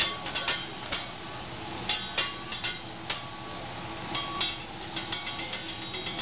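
Hibachi chef's metal spatula and fork clanking and tapping against the steel griddle, a dozen or so irregular sharp strikes that ring briefly, over steady background noise.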